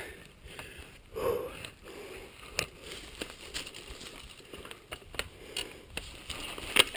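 Chumba VF2 mountain bike setting off on a dry, leaf-covered dirt trail: scattered clicks and crackling from the bike and tyres over the leaves, with a short breath or grunt from the rider about a second in.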